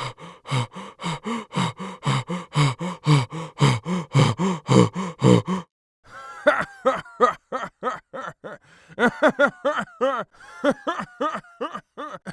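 Wordless human vocal sound effects: a low-pitched voice making short rhythmic grunts, about three or four a second. After a brief pause, a higher voice makes a quicker, irregular series of short grunting, panting sounds.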